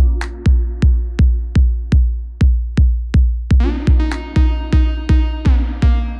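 Electronic background music with a steady kick-drum beat about two and a half times a second under sustained synth chords, with a rising synth sweep about three and a half seconds in.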